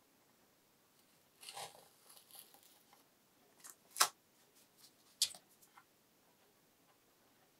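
Quiet handling sounds as a small brush works conductive shielding paint into a guitar body's control cavity and masking tape is held back: a short rustle about one and a half seconds in, then two sharp clicks about a second apart.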